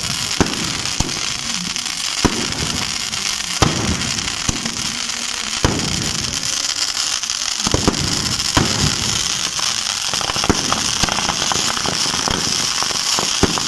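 Firecrackers and fireworks going off: loud bangs every second or so, coming faster in a quick string near the end, over a steady high crackling hiss.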